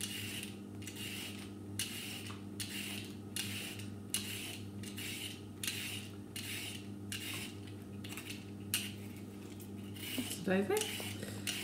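Vegetable peeler scraping the skin off a carrot in short repeated strokes, about two a second.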